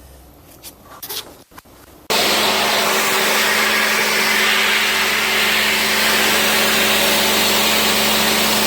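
A motor-driven cleaning machine switches on suddenly about two seconds in and runs steadily, with a constant hum under a loud hiss. It is being used to drive packed dust out of an air conditioner's evaporator coil. Before it starts there are a few light handling clicks.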